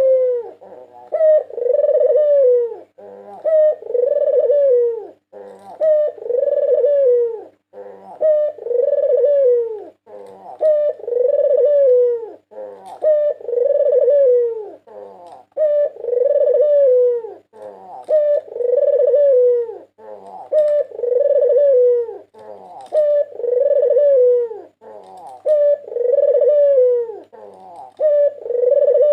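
White Barbary (ringneck) dove cooing: the same coo phrase repeated about every two seconds in an unbroken series.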